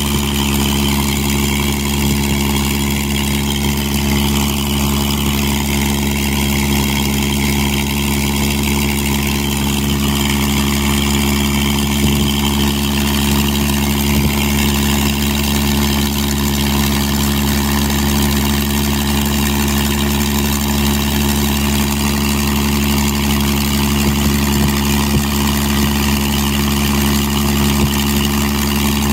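Spitfire Mk XIV's Rolls-Royce Griffon V12 engine running steadily on a ground run, with its five-bladed propeller turning, holding an even pitch and level.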